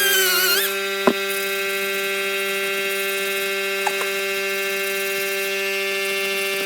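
A steady buzzing drone at one fixed pitch, rich in overtones, held unchanged and cutting off abruptly near the end, with two faint clicks about one and four seconds in.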